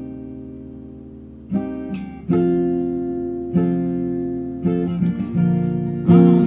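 Background music: an acoustic guitar strumming slow chords, each left to ring and fade before the next.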